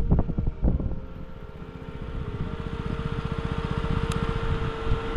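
A vehicle running on the road, with wind buffeting the microphone. About two seconds in, a steady whine comes up and the running noise builds.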